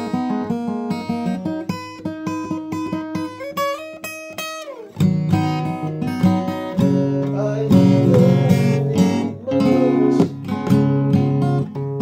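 Guitar music: picked notes climb step by step to a high note that slides down about five seconds in, followed by a louder, fuller passage of chords.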